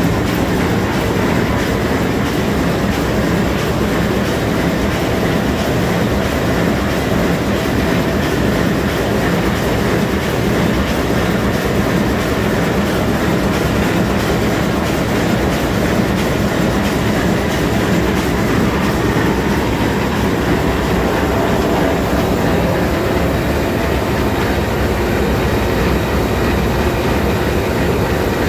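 Sulzer 6RTA62 six-cylinder two-stroke marine diesel main engine running at full speed: a loud, steady mechanical din with no let-up.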